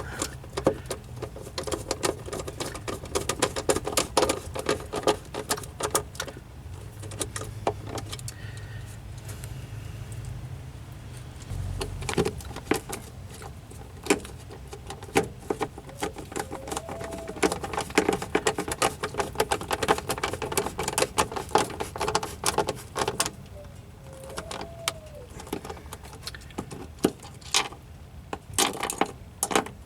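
Hand tools clicking and clinking against metal in irregular bursts while Torx screws are driven into a car's front turn-signal lamp housing, with two brief faint squeaks.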